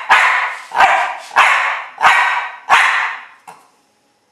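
Coton de Tuléar barking five times at an even pace, about two-thirds of a second apart, then once more, shorter and fainter: the small dog barking out a count in answer to the card held up to it.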